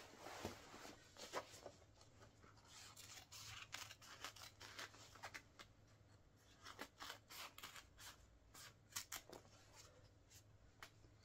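Scissors snipping repeatedly through the fabric of a Wellensteyn Schneezauber jacket: a faint run of sharp, irregular snips, several a second, with a short pause midway.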